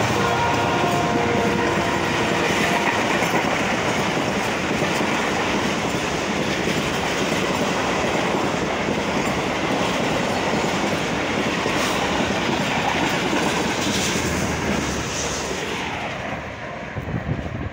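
Pakistan Railways express train passing through a station at high speed without stopping: its horn ends about a second and a half in, then a long, loud, steady rush of the coaches and wheels on the rails, dying away near the end.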